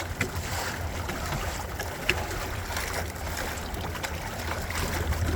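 Water rushing and splashing along the hulls of a small sailing trimaran under way, over a steady low rumble, with a few light knocks.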